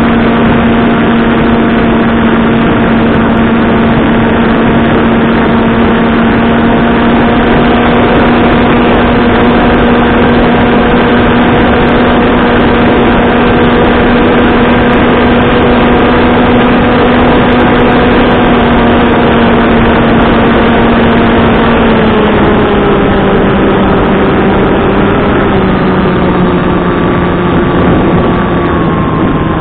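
Electric motor and propeller of a Skywalker Falcon FPV flying wing, heard from its onboard camera under heavy wind rush: a steady drone that drops in pitch in steps through the last third as the throttle is eased back on the descent toward the field.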